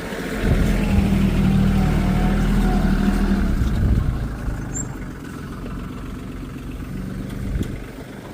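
A vehicle's engine running, louder for the first few seconds and dropping back to a lower, steadier run after about four seconds.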